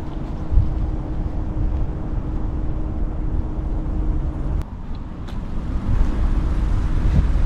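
City street traffic rumble, with a steady hum that stops about two-thirds of the way through.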